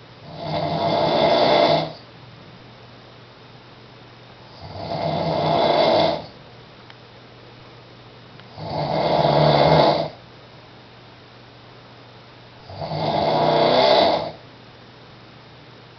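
A man snoring in his sleep with four long snores, one about every four seconds. Each snore grows louder and then stops sharply.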